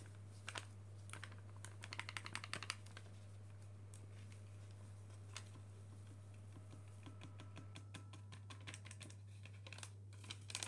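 Faint quick ticking and rustling from a paper sachet of whipping cream powder being shaken and emptied into a stainless steel bowl. The ticking comes in two runs, one about two seconds in and one near eight seconds in.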